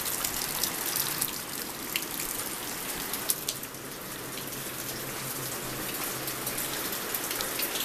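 Steady rush of floodwater and rain, with scattered light ticks.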